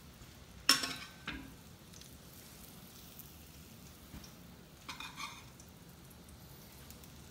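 Metal spoon and cauliflower steaks set down on a ceramic platter: a sharp clink with a short ring just under a second in, a softer knock just after, and a couple of light clinks about five seconds in, with quiet room tone between.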